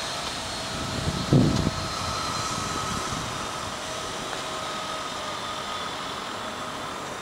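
Steady distant city noise, a hum of traffic with faint steady tones in it. A short low thump comes about a second and a half in.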